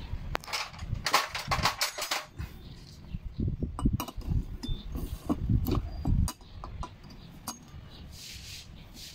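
Hand tools and small metal parts clinking and tapping against a Yamaha Sniper 150's aluminium cylinder head during reassembly, with a long tool worked down inside the cam area. A burst of clinks at the start, a run of duller knocks from handling the head in the middle, then scattered light clicks.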